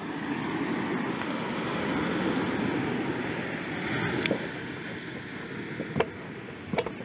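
A broad rumbling wash of noise that swells over the first couple of seconds and eases after about four seconds, with a few sharp knocks in the second half as a large knife cuts through a round loaf down onto a board.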